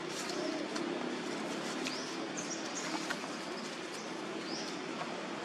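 Steady outdoor background hiss with a few short, high rising chirps about two to three seconds in and again near the end, and faint clicks.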